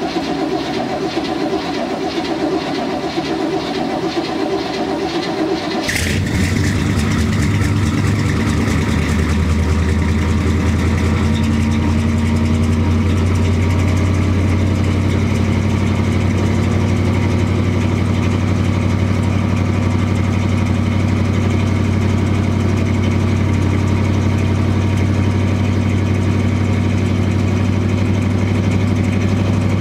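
1980 Chevrolet Cheyenne's original 454 big-block V8 being cranked by the starter in an 18-degree cold start after sitting untouched for a couple of months. It catches about six seconds in and then runs steadily. The sound is heard from beside the rear tailpipe.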